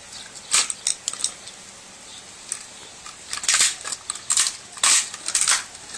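Sharp, irregular cracks and clicks of a TV's circuit board breaking as its aluminum heat-sink parts are pried off. There are a few snaps in the first second, then a busier run of them in the second half.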